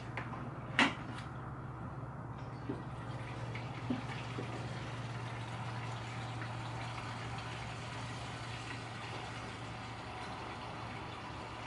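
Gasoline pouring from a plastic jug into a Kawasaki KX250F dirt bike's fuel tank, a steady splashing trickle. A sharp click comes about a second in, and two lighter knocks follow before the pour settles.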